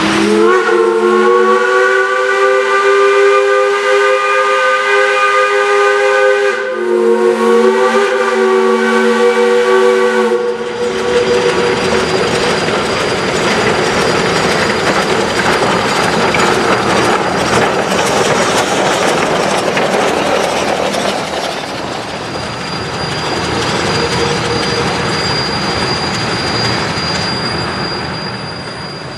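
Shay geared steam locomotive's whistle blown in two long blasts, the first about six seconds and the second about four, followed by a steady hiss of steam as the locomotive moves off.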